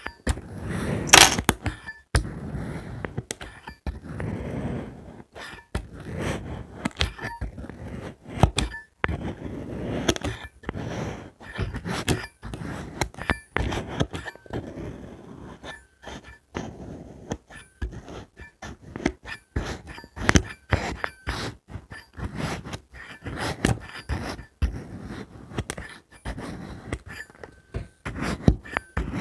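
Colored magic sand being cut and crunched, with a dense run of irregular crisp crackles and scrapes and a sharp crack about a second in.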